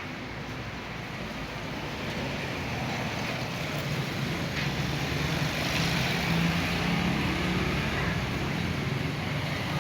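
A motor vehicle's engine and road noise, growing steadily louder over several seconds as it approaches.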